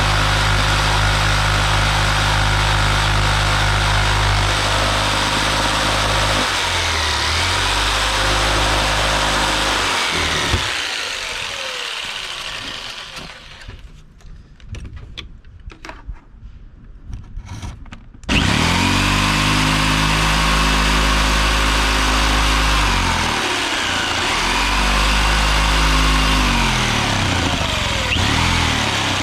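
Electric power saw running and cutting a mounting hole, its motor pitch dipping and recovering as it meets load. About ten seconds in it winds down, leaving a few seconds of light knocks and clicks, then starts up again sharply and keeps cutting.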